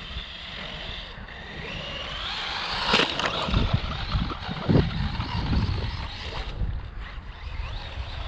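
Electric RC car motor whining and rising in pitch as it speeds up, loudest about three seconds in, followed by a few seconds of irregular low rumbling.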